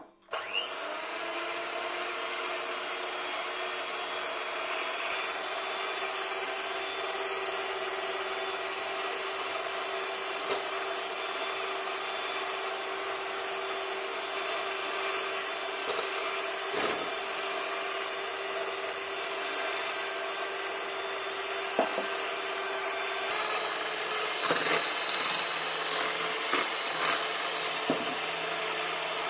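Electric hand mixer whisking egg whites into meringue, switched on at the start: a steady motor whine with the beaters whirring through the whites. Its tone shifts about three-quarters of the way through, and a few short knocks come near the end.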